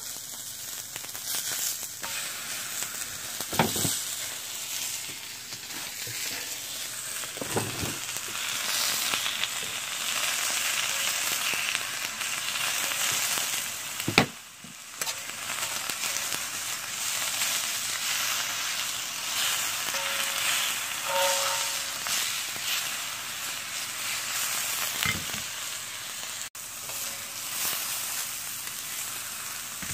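Pork neck steaks sizzling on a hot, thick cast-iron griddle plate. The sizzle is a steady hiss that grows louder about eight seconds in, with a few sharp knocks along the way.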